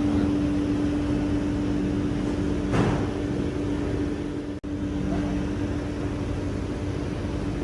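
Steady hum of workshop machinery, with one brief louder knock about three seconds in. The sound breaks off for an instant a little past halfway.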